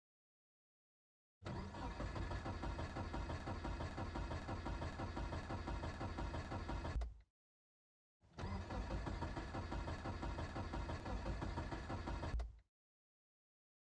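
Car starter cranking the engine in two spells of about five seconds each, with a steady rhythmic churn and a second of silence between them. The engine does not catch: a cold-morning no-start.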